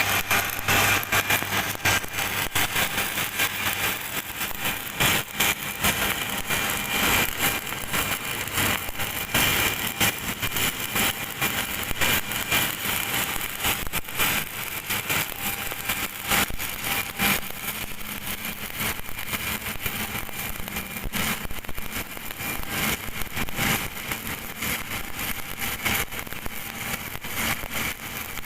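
Electric welding arc crackling and sizzling steadily, with dense irregular crackle.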